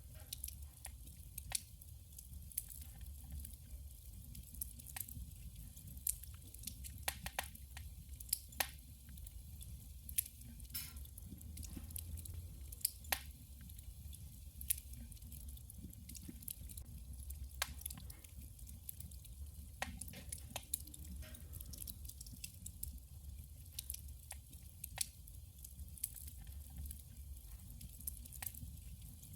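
Wood burning in a wood stove, crackling and popping with irregular sharp snaps over a low steady rumble.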